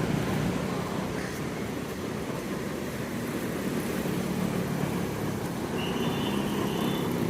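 Road traffic going by: a steady rumble of vehicle engines and tyres, with a faint high whine joining near the end.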